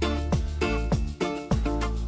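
Background music with a steady beat, about three beats a second, over a strong bass line.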